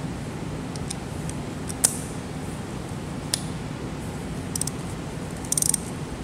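Hand ratchet working a bolt on the diesel cylinder head: a few single metal clicks and taps, then a quick run of ratchet pawl clicks near the end, over a steady low hum.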